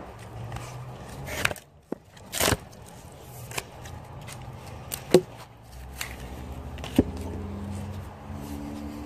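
Firewood being handled and set on a chopping block: a handful of sharp wooden knocks and clunks spread over several seconds, the loudest about two and a half seconds in.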